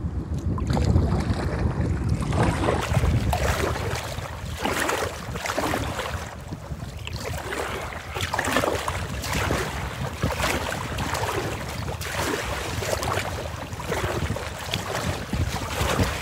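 Choppy lake water splashing against a kayak hull in repeated surges about once a second as the kayak is paddled through the waves. Strong wind buffets the microphone with a low rumble, loudest in the first few seconds.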